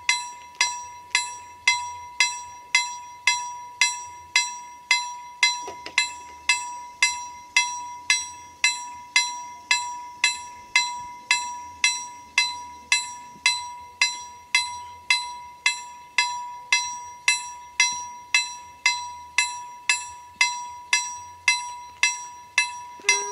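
ZWUS KLD-4013 mechanical level-crossing bell striking steadily, about two and a half strikes a second, each strike ringing out: the crossing's warning that a train is approaching while the half-gates lower.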